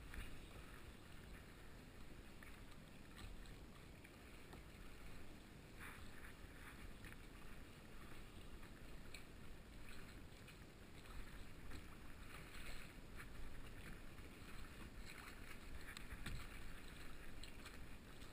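Faint water lapping and splashing against a kayak's plastic hull in choppy water, with irregular small splashes.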